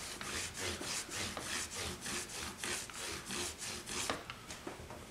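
A fabric cloth rubbed rapidly back and forth along the edge of a guitar neck, buffing wax residue off the filled fret ends: a rhythmic swishing of about four strokes a second that eases off near the end.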